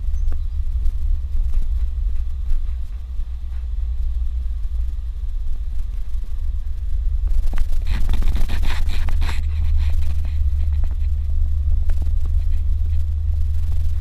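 Low, steady rumble of a Suzuki Jimny driving on a dirt road. A little past the middle comes a couple of seconds of louder scraping and rattling, with scattered knocks.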